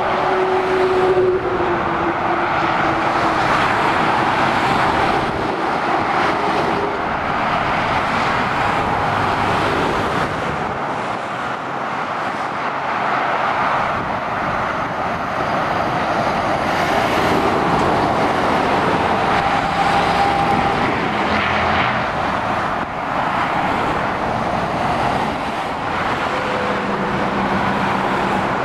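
Steady motorway traffic noise: heavy lorries and cars driving past, a continuous mix of tyre roar and diesel engines.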